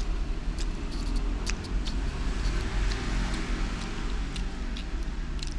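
Steady low rumble of road traffic, with a vehicle passing by around the middle, and a few light clicks scattered through it.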